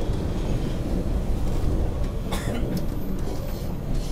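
MBTA subway train running, heard from inside the front car: a steady low rumble of wheels on rail, with a brief sharp clank about two and a half seconds in.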